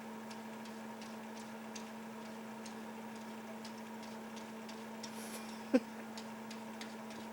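A steady low hum with faint, irregular ticks scattered through it, and one short, sharp squeak that rises in pitch about three quarters of the way through.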